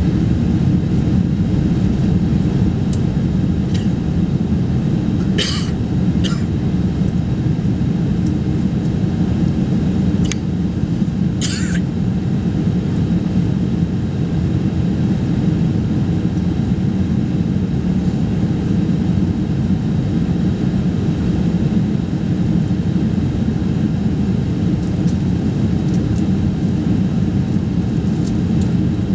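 Airliner cabin noise heard from a window seat in flight after takeoff: a steady low roar of jet engines and airflow. A few short sharp clicks or rattles stand out about five and eleven seconds in.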